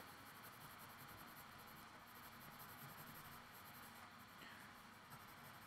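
Faint, steady scratching of a Prismacolor colored pencil shading on sketchbook paper.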